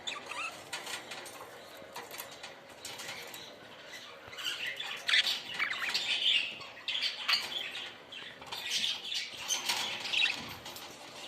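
A group of budgerigars chattering in quick overlapping chirps and squawks, busiest from about four seconds in, with wings flapping.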